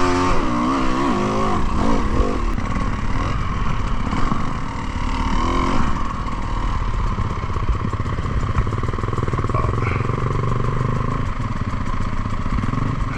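Enduro motorcycle engine revving, its pitch rising and falling several times in the first couple of seconds and again about five seconds in, then running more evenly.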